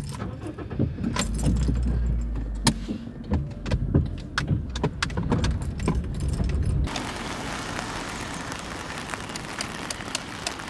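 Inside a moving car: low engine and road rumble with scattered clicks and rattles. About seven seconds in it switches abruptly to a steady hiss of rain.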